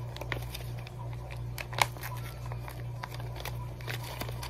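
Small clear plastic parts bag crinkling and crackling as it is handled and opened, in a run of irregular small crackles with one louder crackle a little under two seconds in.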